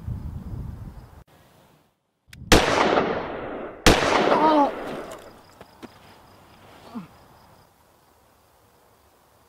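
Two handgun shots about a second and a half apart, each sharp crack trailing off in a long echo. A low rumbling noise fills the first second before a short silence.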